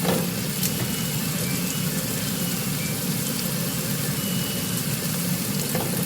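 Chicken pieces sizzling steadily as they brown in a frying pan, with a couple of light clicks near the start.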